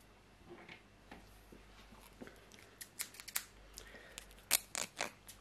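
Scissors snipping close to the microphone: a few faint clicks, then a quick run of sharp metallic snips from about three seconds in, loudest near the end.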